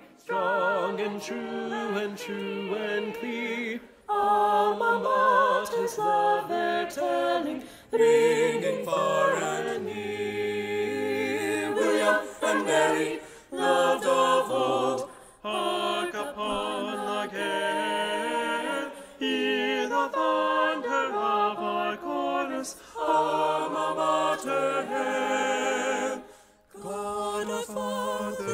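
Choir singing a cappella in harmony, with held notes wavering in vibrato and short breaks between phrases.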